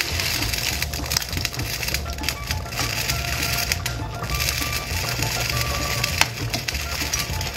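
A metal ladle stirring a large aluminum pot of soup, scraping and clinking against the pot's sides and bottom with many short clicks.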